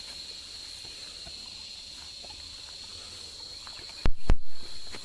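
Steady insect chorus, a continuous high buzz. Two loud thumps come close together about four seconds in.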